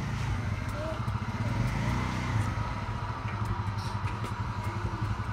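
A motor engine running with a steady low rumble, with a few faint light clicks over it.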